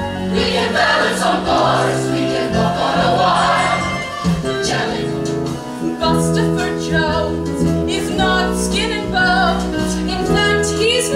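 Musical-theatre number: an ensemble of voices singing together over instrumental accompaniment, with sustained, vibrato-rich sung notes in the second half.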